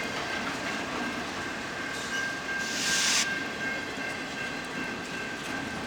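Cars of an intermodal freight train rolling past, making a steady rumble of wheels on rail with a thin, steady high whine over it. A short hiss rises briefly near the middle.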